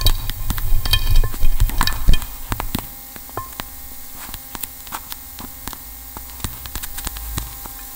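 Experimental electroacoustic sound-art recording. A loud low rumble with clicks and brief high tones drops off about two seconds in to a quieter, steady electrical hum of several held tones, dotted with scattered clicks and crackles.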